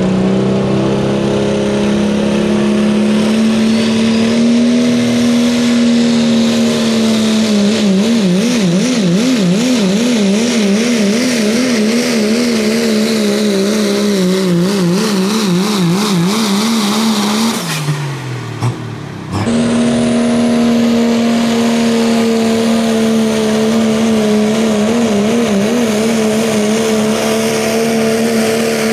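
Modified diesel pickup truck engines running at full throttle while pulling a weight-transfer sled. The engine note holds high with a pitch that wavers up and down. About two-thirds of the way through, the pitch falls as one truck's engine winds down, and after a brief dip a second diesel truck is heard pulling at full throttle.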